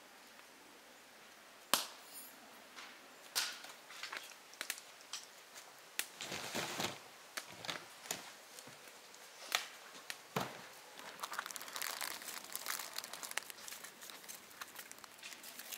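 Newly lit kindling fire of split softwood sticks crackling, with sharp irregular snaps and pops, growing into denser crackling over the last few seconds as more wood is put on.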